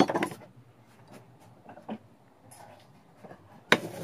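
A few sharp knocks and clicks of hand tools and a 2x4 being handled on a wooden workbench: a loud knock at the start, faint taps in the middle, and another sharp knock near the end.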